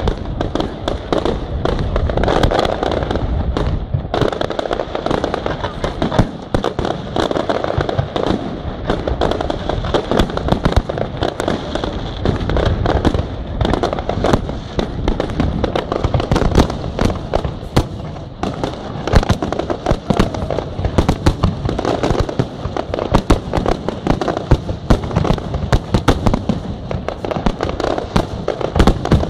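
Fireworks display: a dense, unbroken barrage of shell bursts and crackling, many bangs a second with no pause.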